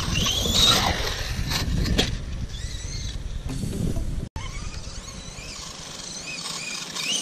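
Wind rumbling on the microphone with the rising and falling whine of a distant electric RC buggy's motor. After a cut about four seconds in, the wind is lighter and birds chirp.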